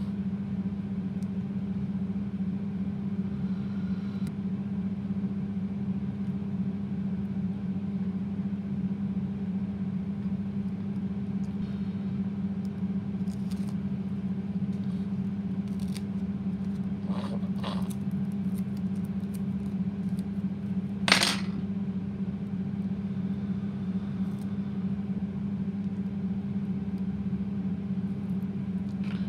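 A steady machine hum with a strong low tone and its overtones, unchanged throughout. Over it come a few light clicks and taps of small plastic kit parts and wooden sticks being handled, the sharpest about 21 seconds in.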